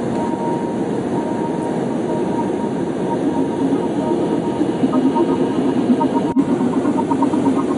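Steady drone of a Beech UC-12F Huron's twin turboprop engines heard inside the cabin in flight, with a brief dropout about six seconds in.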